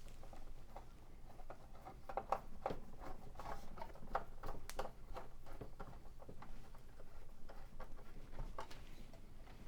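Small screws being handled and put back into a computer power supply's sheet-metal casing: irregular light clicks, taps and scrapes of metal on metal.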